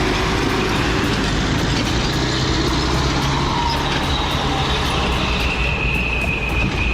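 Heavy machine engine running steadily under load, with a high whine that grows stronger about five seconds in.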